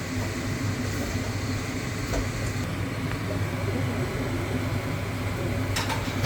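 A steady low mechanical hum with an even rushing noise behind it, and a couple of short clicks, one about two seconds in and one near the end.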